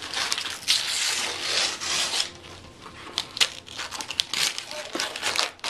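Gift wrapping paper rustling and crinkling as a present is unwrapped by hand. The rustling is loudest in the first two seconds, then breaks into lighter rustles and small taps as the book inside is uncovered.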